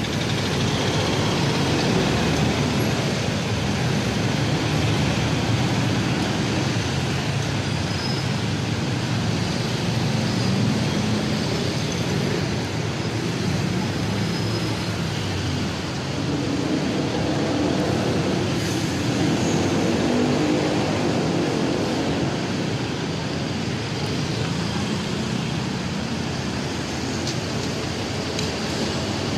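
Steady road traffic: engines of cars, pickups, motorcycles and buses running in slow, congested city traffic.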